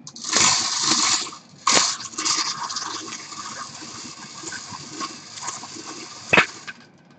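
Small wire bingo cage being spun by hand, its numbered balls tumbling and rattling inside in a dense, rushing clatter that is loudest in the first couple of seconds and then settles. A sharp click comes near the end before it stops.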